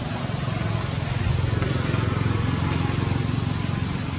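Low outdoor rumble that swells about a second in and eases toward the end.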